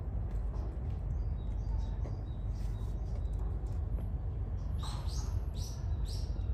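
Bird calls: a few faint chirps, then from about five seconds in a quick run of four or five loud rising chirps about half a second apart, over a steady low rumble.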